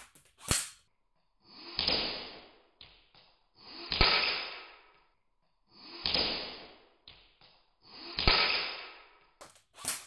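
An airsoft electric gun fires a single sharp crack about half a second in, and quick sharp shots come again near the end. In between, BB shots hitting a clear plastic action-camera case are heard slowed down, as four stretched, muffled swells about two seconds apart, two of them with a sharp knock.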